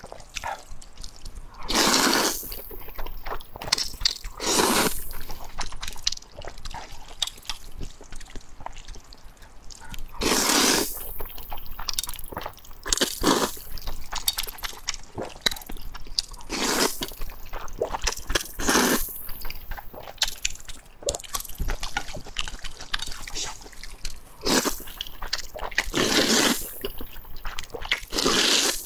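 Close-miked slurping of thick wheat noodles in mushroom and meat sauce: about eight long wet slurps a few seconds apart, with wet chewing and mouth clicks in between.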